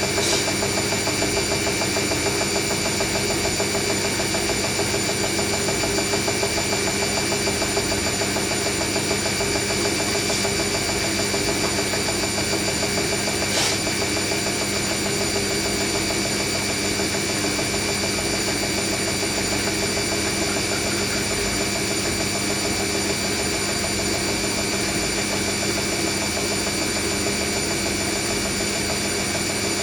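Hoover NeXtra HNL3146 washing machine spinning at a steady speed during its intermediate spin, a constant motor and drum hum with a couple of faint ticks.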